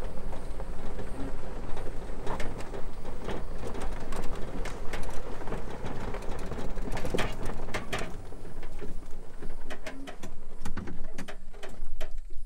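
Electric golf cart driving over a gravel road: a steady rumble of tyres on gravel with many short rattles and clicks from the cart.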